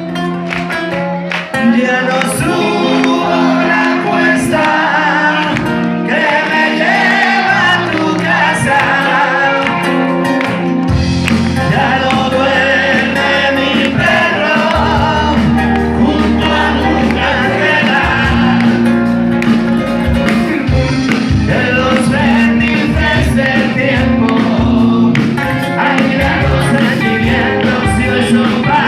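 Music: a band playing a pop-rock song with bass and drums, with a singing voice at times over the instruments.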